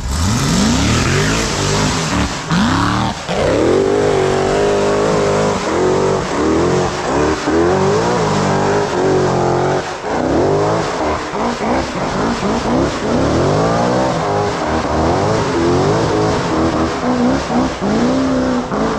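High-horsepower off-road hill-climb vehicle's engine revving hard, its pitch rising and falling over and over as the throttle is worked.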